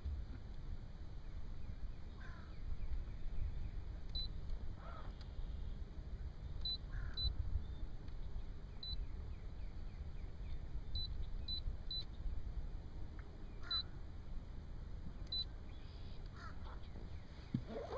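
Short, high electronic beeps from the boat's electronics, about nine at irregular intervals, over a steady low rumble.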